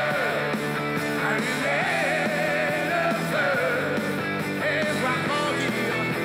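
Rock song playing, with a singing voice over the band.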